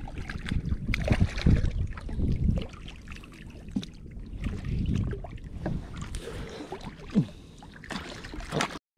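Irregular knocks, rattles and rustling of handling inside a small aluminium fishing boat, with water splashing at the boat's side where a small hooked hammerhead shark is at the surface.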